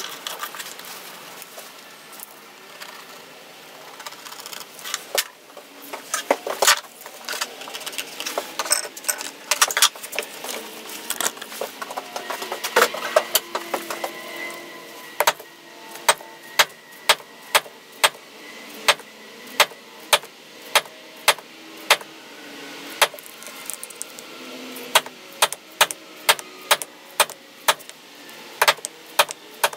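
A series of sharp clicks and taps from hand tools at work cutting out gaskets from stiff gasket material, crowded and irregular at first, then settling into a fairly steady run of about one to two clicks a second from halfway through.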